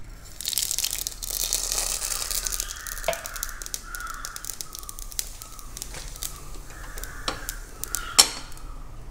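Mustard seeds dropped into hot oil, sizzling loudly at first, then crackling and popping under a newspaper laid over the pan to stop them spattering. Birds squawk in the background.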